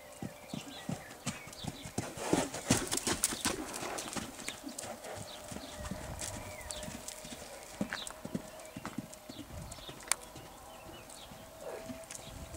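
Hoofbeats of a black Trakehner horse cantering loose on a sand arena, a rapid run of dull thuds that is loudest about two to four seconds in.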